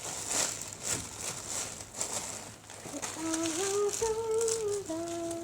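Plastic packaging being handled and crinkling, then a person humming a few held notes from about three seconds in.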